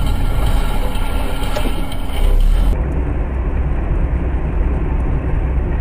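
Steady low rumble of engine and road noise inside a moving car, as picked up by a dashcam. About three seconds in, the sound changes abruptly to a duller but similar rumble.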